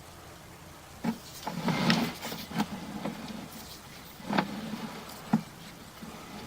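A series of sharp knocks with rubbing and scraping, starting about a second in: the push cable of a sewer inspection camera being handled and fed into the drain line.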